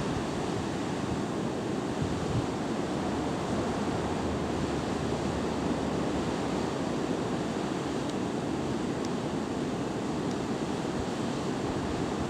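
Wind blowing across the camera microphone: a steady rushing noise, heaviest in the low end.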